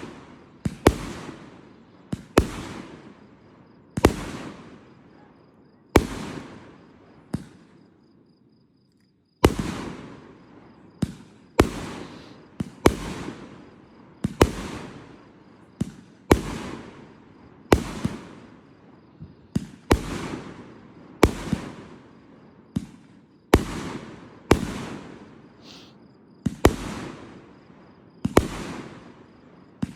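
Fireworks shells bursting overhead: sharp bangs about every one to two seconds, each followed by a fading rumble, with a brief break about nine seconds in.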